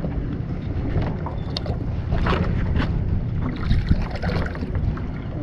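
Wind rumbling on the microphone over water lapping and splashing lightly, as a small fish is lowered by hand into the water beside a paddleboard.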